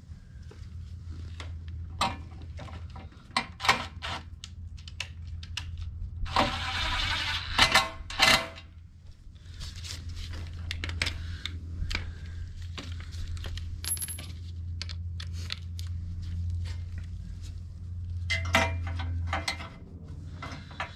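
Small metal parts and hand tools clinking and clicking in a scattered series of sharp ticks as screws and a sheet-metal engine shield are fitted back on, with a louder scraping rattle about seven to eight seconds in and again near the end. A steady low hum runs underneath.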